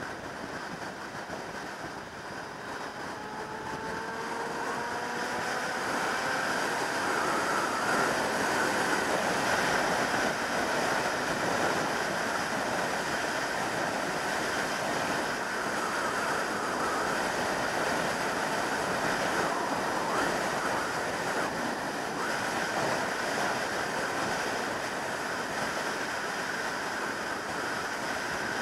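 Wind rushing over the microphone of a motorcycle at motorway speed, with the 2003 Yamaha YZF600R Thundercat's inline-four engine rising in pitch as it accelerates a few seconds in. The wind noise grows louder as speed builds, then holds steady.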